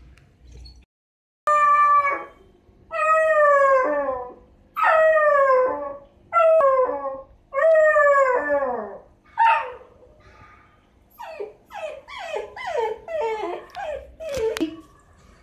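Six-month-old miniature dachshund puppy crying to be let out: five long whining howls, each falling in pitch, then a quick run of short whimpers and yips.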